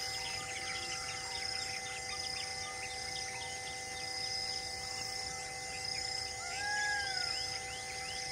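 Forest ambience: many birds chirping and insects trilling in a repeating high pattern, with one arching whistled bird call about six and a half seconds in. A few faint steady tones hold underneath.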